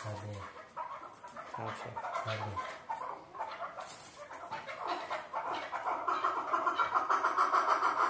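Male chukar partridges calling: a rapid run of clucking notes that grows louder from about six seconds in.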